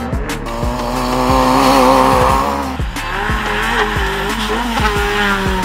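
Background music with a steady drum beat, mixed with the sound of a racing car on a dirt autocross track. The car noise swells to its loudest about two seconds in.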